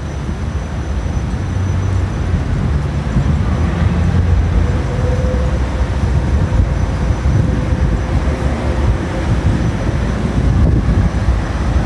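Steady low rumble of city street traffic, with a faint engine hum from a passing vehicle partway through.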